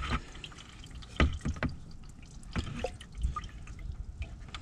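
Diesel fuel dripping and trickling from a removed fuel filter housing into a plastic bucket, with a few separate knocks as the housing is handled.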